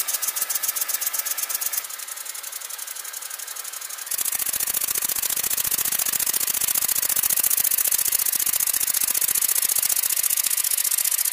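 Small brass model steam engine running fast: a quick, even rattling clatter from its moving parts, which grows louder with a hissing edge about four seconds in.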